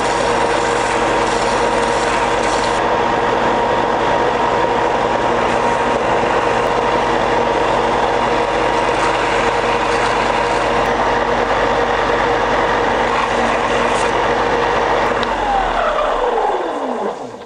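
Ryobi 4-by-36-inch belt sander running, a coconut lure blank pressed against the belt, giving a steady motor hum under a sanding hiss. About fifteen seconds in it is switched off and its hum falls in pitch as it winds down.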